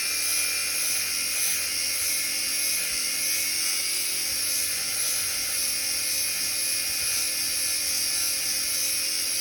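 Power grinder running steadily against the steel tooth of a drum mulcher, sharpening it with a continuous high-pitched grinding whine.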